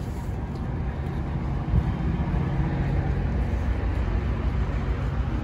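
City street traffic: a steady low rumble of vehicle engines that swells briefly about two seconds in, as if a vehicle passes close by.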